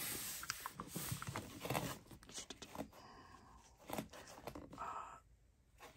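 Hands handling and turning over a cardboard shoe box: rubbing, scraping and light taps on the cardboard, busiest in the first couple of seconds.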